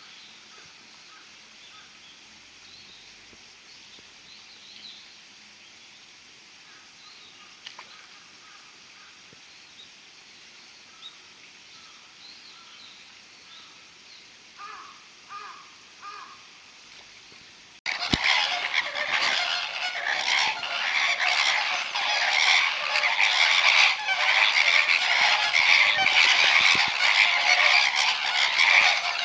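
A flock of flamingos calling: a few faint scattered calls at first, then after a sudden cut, about two-thirds through, a loud, dense chorus of many overlapping calls.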